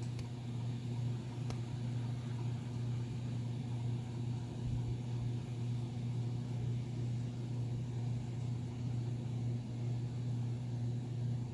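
Harbor Breeze Annalise 44-inch ceiling fan running on medium speed: a steady low hum with small ripples in level, and a noise from the blades that the owner takes for blade vibration.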